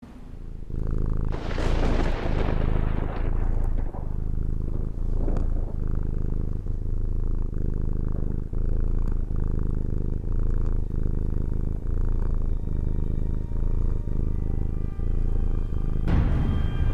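Domestic cat purring loud and close, pulsing in a steady rhythm a little under once a second. A whoosh sweeps down in pitch a couple of seconds in, and music starts to come in near the end.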